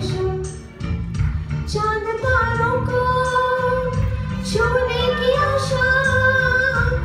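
A woman singing a Hindi song into a microphone over backing music, holding two long, steady notes after a brief pause about a second in.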